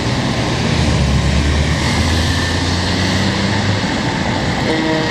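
Heavy diesel engine of an E-One fire pumper rumbling as the truck pulls out of its bay. Near the end its horn starts sounding, a steady chord of several tones.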